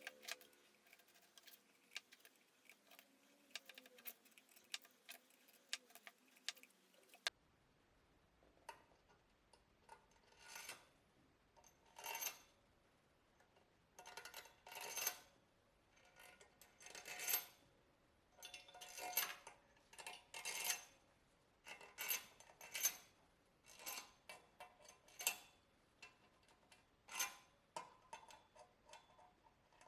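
Short metallic clinks and clicks of hand tools working on metal engine parts, faint and scattered at first, then coming in quick bursts every second or two from about seven seconds in.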